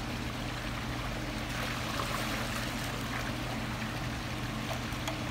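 Steady running and trickling water with a constant low hum underneath. The water gets briefly louder, splashing and dripping, from about one and a half to three and a half seconds in, as the suction pipe's check valve is lifted out of the pond.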